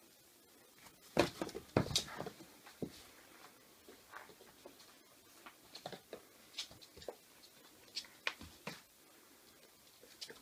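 Whippet puppy's claws and paws pattering and clicking on a wooden floor as it romps with a plush toy. There is a burst of louder knocks about a second in, then lighter scattered taps.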